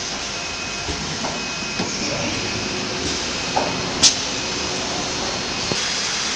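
Steady machinery noise in a CNC router workshop, with a few light knocks and one sharp click about four seconds in.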